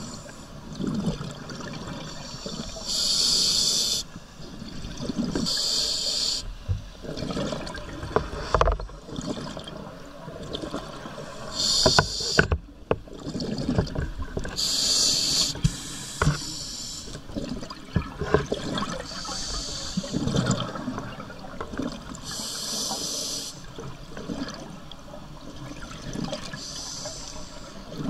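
Scuba diver breathing through a regulator underwater: a rush of exhaust bubbles on each exhale, about seven times at intervals of a few seconds, with the lower sound of the inhale between them. A few sharp clicks come about halfway through.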